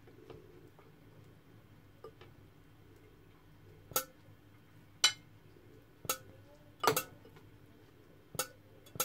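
A serving utensil clinking against a ceramic dinner plate while food is served onto it: a run of sharp clinks, about one a second, starting about four seconds in.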